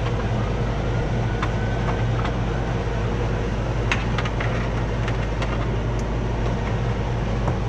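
Steady hum of an air conditioner's indoor air handler running, with a few light clicks and knocks from handling nearby.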